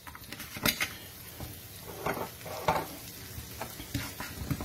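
Chopped onion and spring onions sweating in oil in a non-stick frying pan with a light sizzle, while a wooden spatula stirs and scrapes them around the pan in about five irregular strokes.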